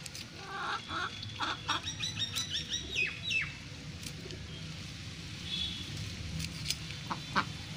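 A bird calling: a quick run of chirps starting about a second in, the last two falling in pitch. A couple of short knocks near the end.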